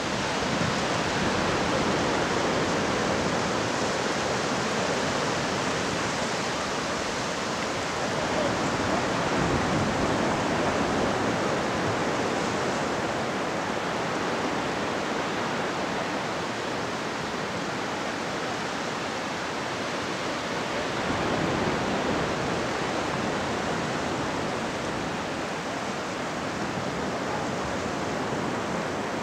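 Surf washing onto a shallow sandy beach: a steady rush of breaking waves that swells gently louder and softer every several seconds.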